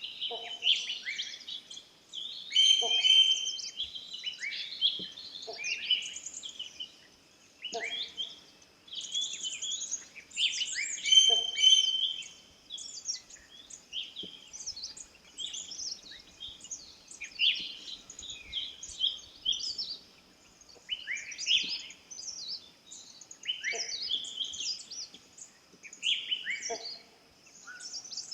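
A chorus of forest birds: many overlapping quick chirps and whistled phrases. Beneath them a lower short call repeats about every two seconds, and a thin steady high tone runs throughout.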